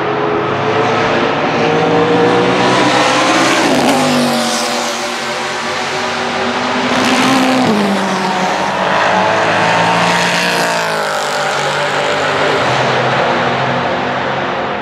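Race car engines passing through a corner one after another. Their pitch falls sharply about four seconds in and again about eight seconds in, then climbs as the cars accelerate away.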